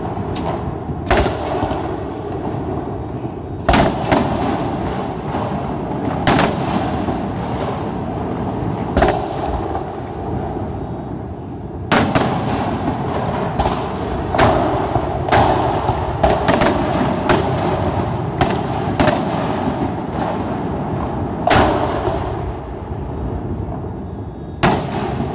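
Aerial firework shells bursting overhead: about twenty sharp bangs at irregular intervals, coming thick and fast for several seconds in the middle, over a steady background hiss.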